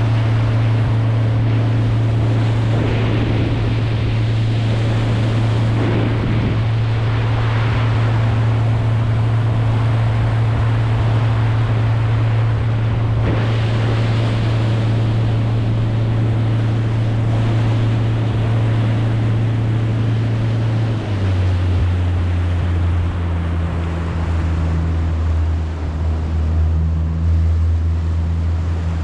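A boat motor running with a steady low drone over water and wind noise; about two-thirds of the way through its note drops suddenly to a lower pitch, as if throttled back.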